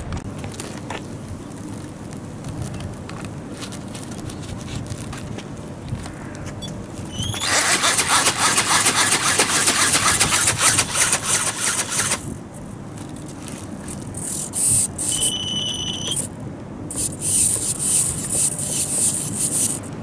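NightFury dragon ornithopter's brushless motor and gear drive running with the film wings flapping, a dense rapid whirring rattle for about five seconds, then in shorter spurts near the end. A short high beep comes in between, and wind rumbles on the microphone throughout.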